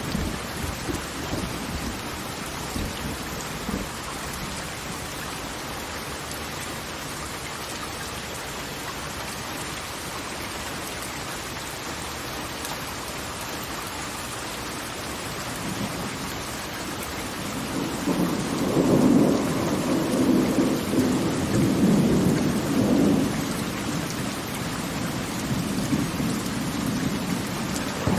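Steady rushing noise of falling water from a large waterfall. About two-thirds of the way in, a low rolling rumble swells up for several seconds, then eases back.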